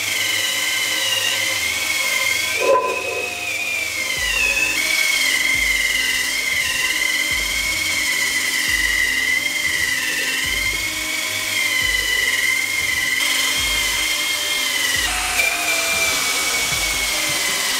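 Dremel Versa cordless power scrubber running with an abrasive pad against the wet underside of a cast iron pan, scrubbing off caked soot. It gives a steady high motor whine that wavers slightly in pitch as the pad is pressed and moved.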